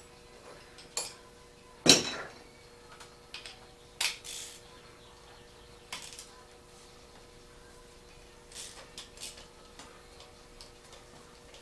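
Metal clinks and clanks of hand tools and parts being handled, with one sharp clank about two seconds in the loudest and lighter clicks scattered through the rest.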